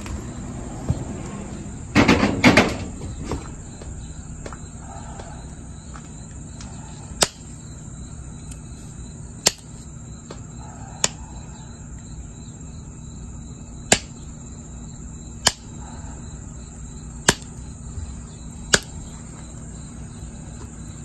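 Pressure flaking a jasper point with a hand-held pressure flaker: about seven sharp clicks, one every one and a half to two and a half seconds, as small flakes pop off the stone's edge. A short rough scraping noise comes about two seconds in, and a steady high insect-like trill runs underneath.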